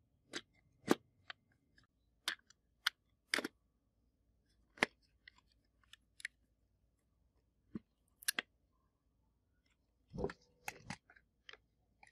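Scattered sharp clicks and taps from handling a Kinsmart 1:32 die-cast Volkswagen Beetle model and working a small screwdriver into the screws of its plastic baseplate, with a quick cluster of knocks near the end.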